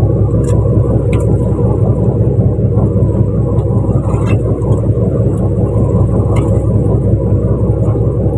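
Fishing boat's engine running steadily and loudly, with a few faint clicks scattered through it.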